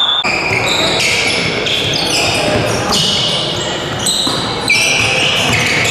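Basketball game in a gym: the ball bouncing on the court amid crowd and player voices, with short high-pitched squeals starting and stopping every half second or so.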